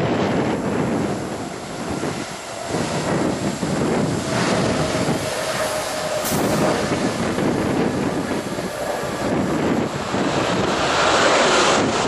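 Boeing 777 freighter's twin GE90 jet engines at takeoff power as it rolls, rotates and lifts off: a steady, loud roar, mixed with wind buffeting the microphone.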